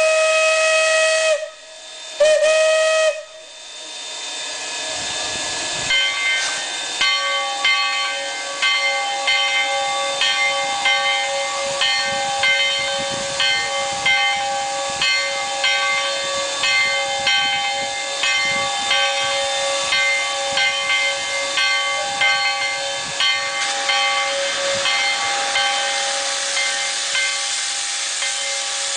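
Steam locomotive sounding two whistle blasts, then hissing steam and a steady run of exhaust chuffs, a bit over one a second, as it gets under way. A steady tone runs beneath the chuffs.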